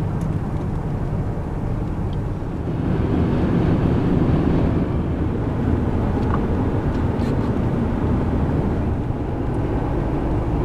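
Steady road and tyre noise with engine hum inside a moving SUV's cabin at highway speed, growing louder about three seconds in.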